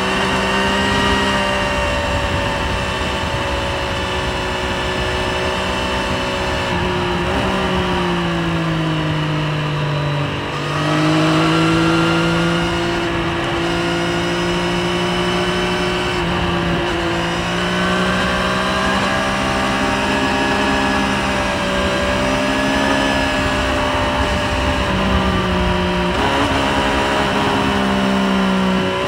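Triumph Street Triple 765 RS's three-cylinder engine running at high revs at speed, with wind rush. Its pitch sags as the throttle eases about a third of the way in, then rises sharply and louder as it pulls hard again, with smaller rises and falls after that.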